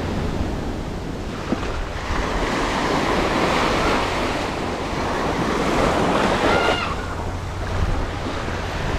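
Small waves breaking and washing up a sand beach, swelling and ebbing every few seconds, with wind rumbling on the microphone.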